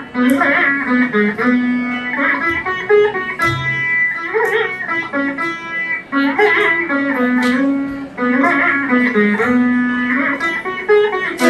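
Ensemble of Saraswati veenas playing a melody together, plucked notes with sliding pitch bends between them.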